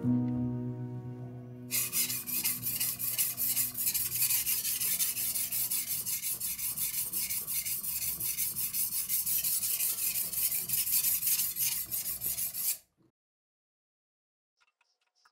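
Chinese cleaver's steel blade being sharpened by hand on a wet whetstone: steady back-and-forth scraping strokes, starting about two seconds in as background music fades, and cutting off suddenly near the end.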